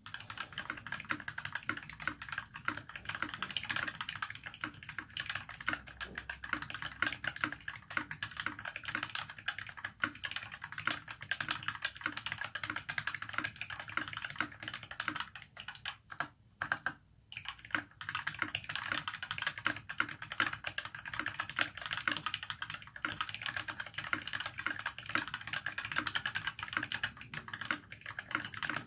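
Steady, fast typing on a Vortexseries VX64 mechanical keyboard fitted with filmed Durock linear 67 g switches, PBT blank keycaps and a stainless steel plate in a plastic case. The typing breaks off briefly a little past halfway, then carries on.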